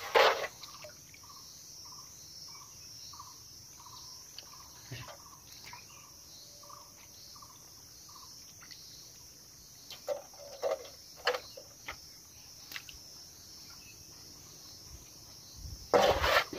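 Hands splashing and squelching in a shallow muddy puddle a few times: right at the start, several times about ten seconds in, and loudest near the end. A steady high insect buzz runs underneath, and for the first eight seconds a short call repeats about twice a second.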